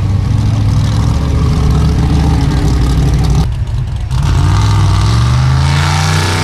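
Formula offroad buggy engine running hard at high revs on a dirt hill climb. After a short break about three and a half seconds in, an engine revs up and down repeatedly.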